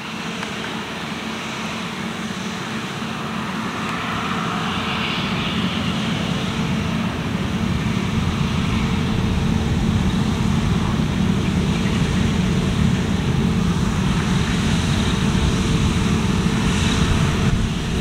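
Claas Lexion 600 TT combine harvester cutting oilseed rape with its V950 header, engine and threshing gear running in a steady drone with a steady hum over it. It grows gradually louder as the machine comes closer.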